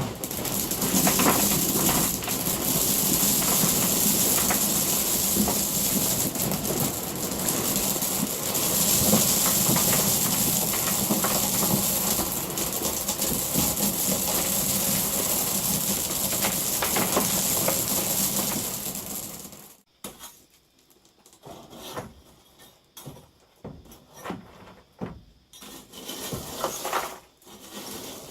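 Crushed stone (blue metal gravel) pouring out of a bag into a container, a continuous rattling rush that cuts off abruptly about two-thirds of the way through. Scattered small clinks and knocks follow.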